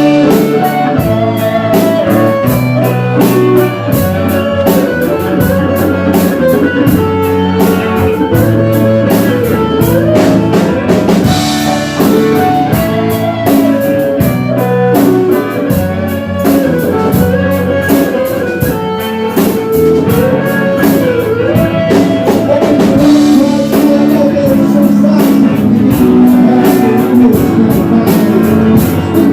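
A live band playing an instrumental opening number: a guitar-led melody over bass and a drum kit keeping a steady beat, starting straight off a count-in.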